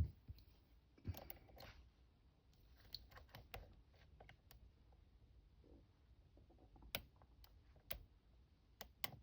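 Faint, scattered clicks of a lock pick and tension tool working the pins inside a kick-cylinder challenge lock, with a few sharper clicks near the end.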